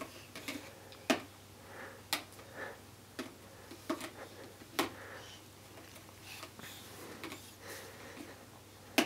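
Plastic rings of a Fisher-Price Rock-a-Stack stacking toy knocking against each other and the post as they are handled and stacked. There are sharp clacks about once a second for the first five seconds, then one more near the end.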